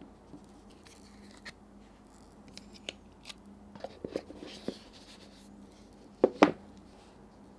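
Hands handling iPhone packaging and parts: scattered small clicks and rustles, then two sharp, loud knocks close together about six seconds in.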